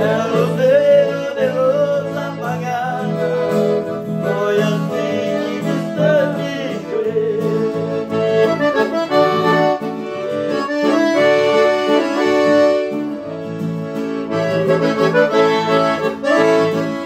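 A hymn played on piano accordion and acoustic guitar, with men's voices singing along in stretches.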